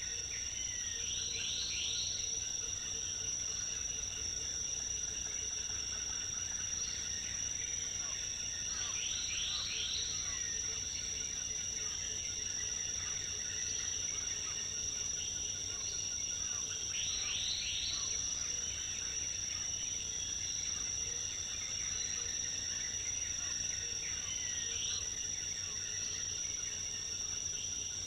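Rainforest insect chorus: a steady, high-pitched insect drone, with a short burst of three quick rising chirps about every eight seconds.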